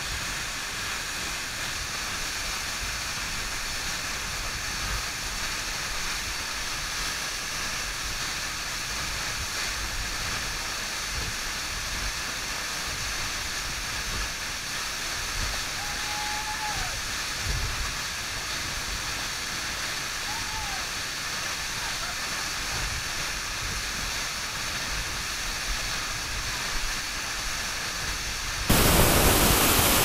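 Steady, even rush of a waterfall more than 40 m high pouring onto rock and into its plunge pool. Near the end the rushing suddenly grows louder and fuller.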